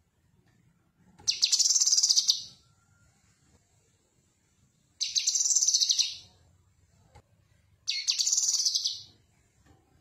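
Caged cucak kinoi leafbird singing three high, rapid chattering phrases of about a second each, a few seconds apart.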